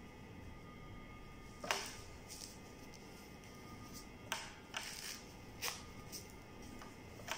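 Curtain fabric and its clear plastic wrapping rustling and crinkling as a curtain panel is lifted and handled, in about six short, sharp rustles.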